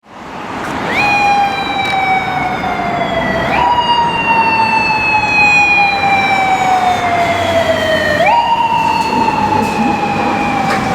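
Japanese police motorcycle siren wailing during an emergency run: each cycle jumps up sharply, then falls slowly over a few seconds, three times, over steady road noise.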